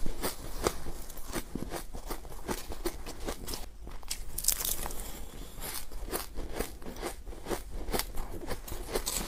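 A mouthful of powdery ice being chewed close to the microphone: a quick run of soft crunches, about two or three a second, with a brief pause about four seconds in.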